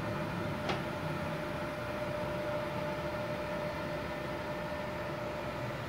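Steady whir of an inverter welding machine's cooling fan idling while the machine is switched on, with one faint steady tone through it and a single short click just under a second in.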